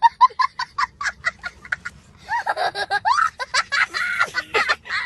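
A child giggling: a quick run of short, high-pitched laughs, about five a second at first, then a few longer squeals that rise and fall in pitch.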